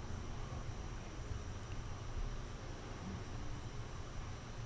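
Crickets chirping in a high, evenly repeating pattern, with a low rumble underneath.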